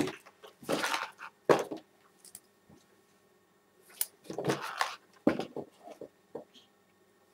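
Handling noise from a multimeter's test probes and leads being picked up and laid on a box on a desk: a few short rustles and knocks, with one sharp click about four seconds in.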